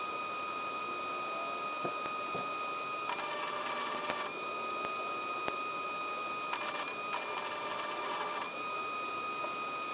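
Electric welder tacking steel cattle panels: a steady high whine from the machine, with three short runs of arc crackle about three seconds in and again from about six and a half to eight and a half seconds in. The whine dips slightly in pitch while the arc burns.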